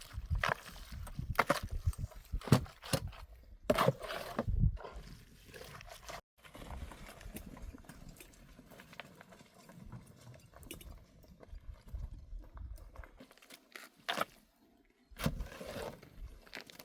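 Irregular knocks and thuds, several in the first five seconds, then quieter scraping and rustling with occasional knocks; the sound cuts out for about a second near the end.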